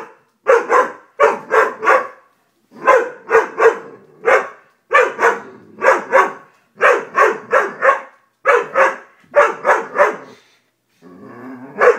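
Doberman barking repeatedly, loud short barks in quick runs of two or three with brief pauses between the runs.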